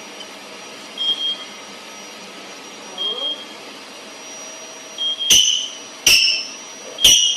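Short high-pitched beeps over a steady background hum. Quiet single beeps come about every two seconds, then from about five seconds in much louder, sharper beeps follow just under a second apart.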